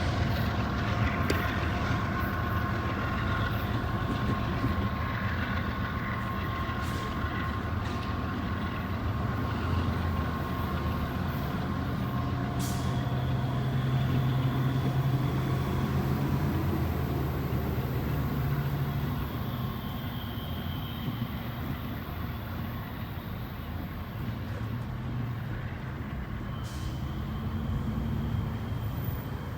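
CSX intermodal freight train rolling past: a steady rumble of wheels on rail, with thin steady high tones over it in the first half.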